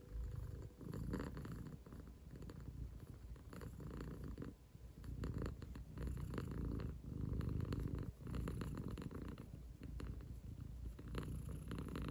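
Close-up purring of an American Curl cat being stroked on the head, a steady low rumble that swells and eases in waves about every second.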